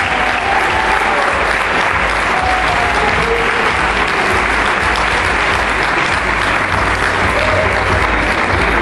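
Large audience applauding, a dense, steady clapping that keeps up without a break.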